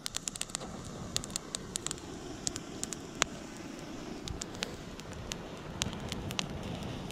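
Dry reeds and dead grass burning: irregular sharp crackles and pops over a steady low rushing noise.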